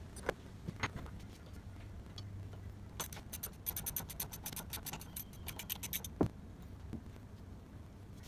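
Hand socket ratchet clicking in a quick run for about three seconds, followed by one sharp metal knock; a couple of light tool clicks come before the run.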